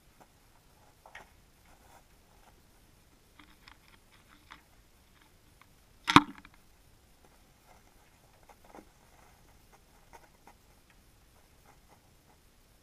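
Faint scattered clicks and taps picked up by an underwater camera, with one sharp knock about six seconds in.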